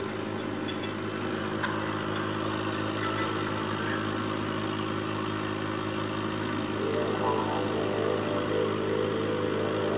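Steady electric hum of an aquarium pump running, a constant drone with more tones joining in about seven seconds in.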